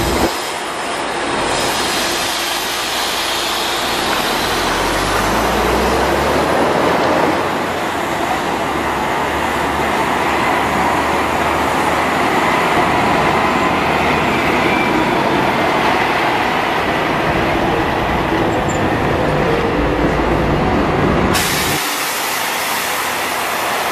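Diesel engines of large double-decker coaches running as they pull out and drive past, over steady street noise. The main one is a Scania-engined Marcopolo Paradiso 1800DD, whose deeper rumble builds from about four seconds in. The sound changes abruptly near the end as another coach is heard.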